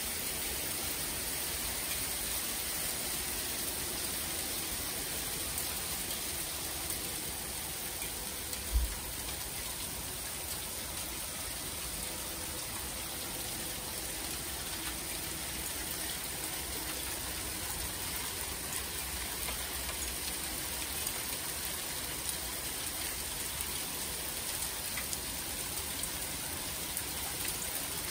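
Small hailstones falling steadily, a dense even patter. A brief low thump about nine seconds in.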